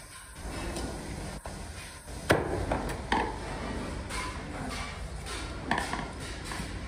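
A flat steel bar striking a wire-bound wooden crate several times: sharp knocks, the loudest a little over two seconds in, over steady workshop noise.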